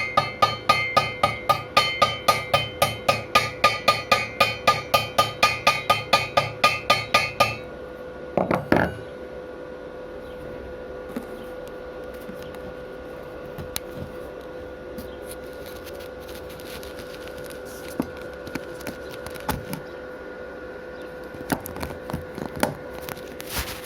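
A hammer rapidly striking welded steel, about four ringing metallic blows a second, as when chipping slag off a fresh weld seam. The blows stop about seven seconds in. A short scrape follows, then scattered light clicks over a faint steady hum.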